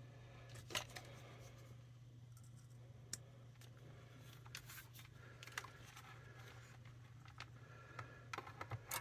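Faint scattered clicks and small metallic taps as a crocodile clip is worked down onto the battery spring inside a radio, with the clicks coming more often near the end, over a steady low hum.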